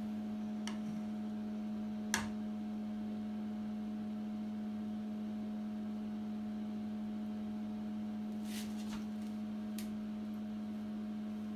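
Steady low mechanical hum of a running kitchen appliance. Over it, a sharp click about two seconds in and a few lighter clicks later, as a plastic ladle spoons white sauce over the lasagna in a glass baking dish.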